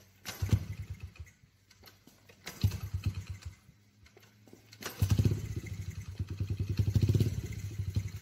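Honda XR50R's small four-stroke single-cylinder engine being kick-started. Two kicks turn it over with brief runs of firing pulses, then on the third it fires and runs unevenly for about three seconds before stopping near the end.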